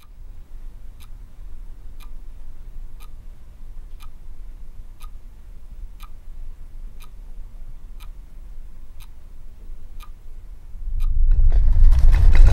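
A clock ticking about once a second over a low steady hum. Near the end, a loud rumbling noise breaks in suddenly.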